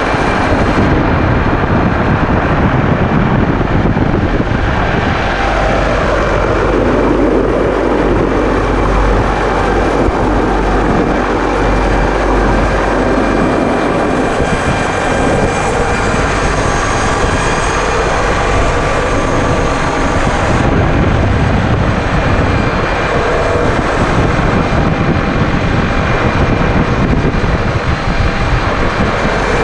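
Helicopter running steadily in flight: continuous turbine and rotor noise.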